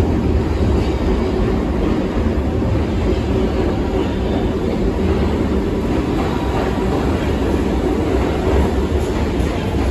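New York City subway train running along the express track through the station: a steady, loud rumble with wheel clatter.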